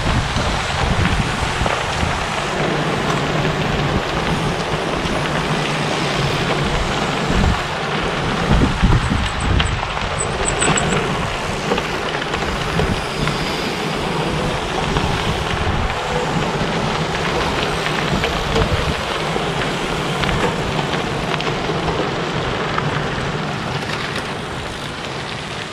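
Gravel bikes passing one after another close by, their tyres crunching and crackling on loose gravel as a steady noise. A short run of high chirps comes about ten seconds in.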